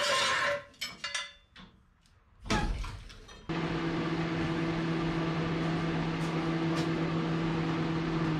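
A few light clicks and one heavy thump, then a machine's steady motor hum starts suddenly about three and a half seconds in and runs on.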